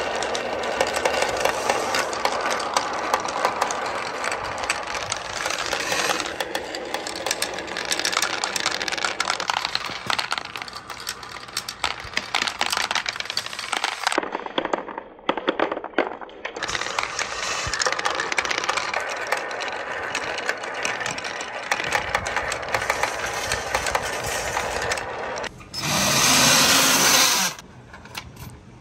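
Small plastic balls rolling down wooden marble-run slopes, a steady run of rapid clicks and clatters as they knock along the wood and drop onto plastic and into a box of balls. Near the end a loud, even noise lasts about two seconds.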